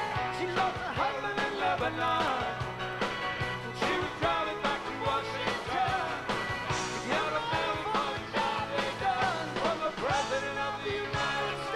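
Rock band playing live: bass and drums under a lead line of bending, sliding notes.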